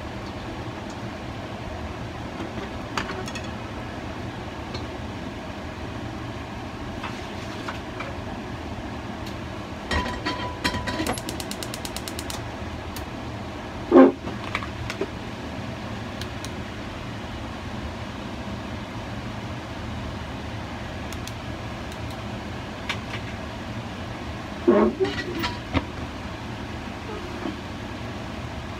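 Steady hum of a running cooking appliance, set to 180 for ten minutes, with a few clinks and knocks. The sharpest knock comes about 14 seconds in, and a small cluster of clinks comes about 25 seconds in.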